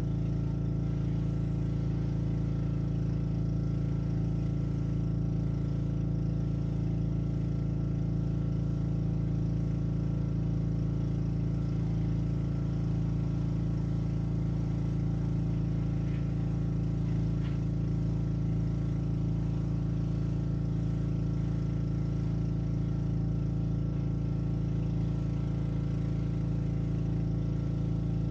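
Black Max pressure washer's Honda small engine running at a steady speed.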